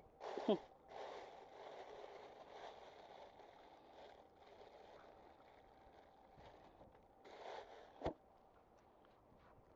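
Styrofoam cooler being handled: a short squeak falling in pitch as the lid is pulled open, then soft rustling of a plastic bag as a hand rummages among the fish inside, and a sharp knock about eight seconds in as the lid is set back on.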